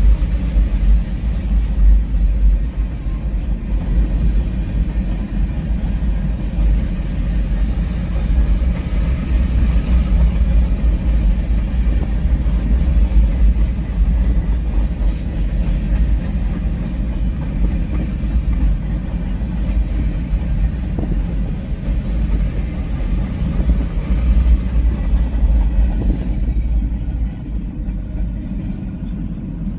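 Empty grain hopper cars of a freight train rolling past with a steady low rumble, which eases off near the end as the last cars go by.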